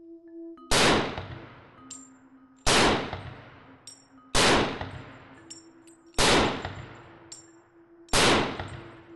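Five single shots from a semi-automatic .223 Remington rifle, spaced about two seconds apart, each with a long echoing decay. Faint short high pings follow each shot.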